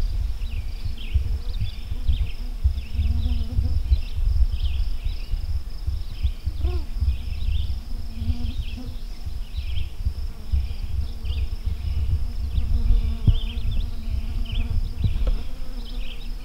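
Field ambience: many short high chirps and calls of birds and insects, several a second and overlapping, over a strong low rumble on the microphone.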